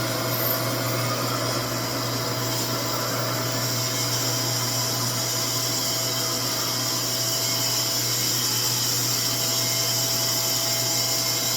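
RevAir reverse-air hair dryer running steadily: its motor's constant whine over a rush of air, a suction-type dryer that draws the hair into its tube.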